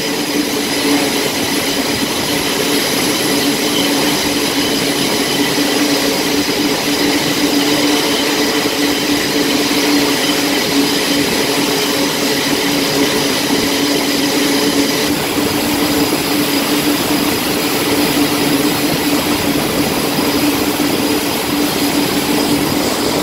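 Jet engines running on an aircraft carrier's flight deck: a steady, loud rushing roar with several constant whining tones, turning a little brighter about fifteen seconds in.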